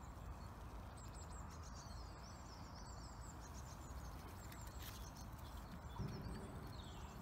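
Small birds chirping and singing faintly in repeated short, high phrases, over a low steady rumble.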